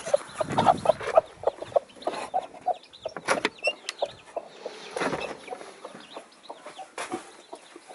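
Hens clucking repeatedly in short, irregular calls, with a few sharp knocks and rustles as the eggs beneath them are handled.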